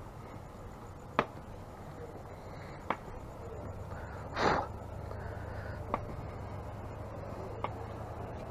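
Footsteps of a person walking slowly on a brick sidewalk: sharp single clicks about every second and a half to two seconds, over a low steady hum. A brief swish, louder than the clicks, comes about halfway through.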